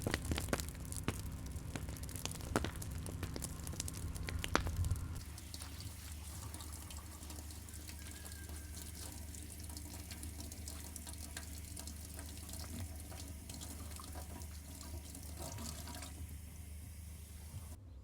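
Water running steadily from a tap, with several sharp knocks and clicks during the first five seconds.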